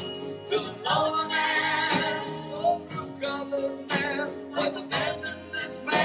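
Live band music: women singing held, wavering notes over keyboard, guitar and drums, with drum strokes keeping a steady beat about once a second.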